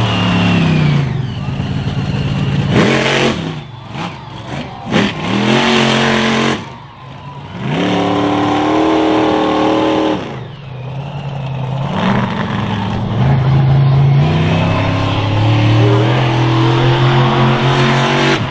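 Monster truck engine revving in short bursts, then held at high revs, dropping off about ten seconds in and building up again to full revs as the truck drives hard.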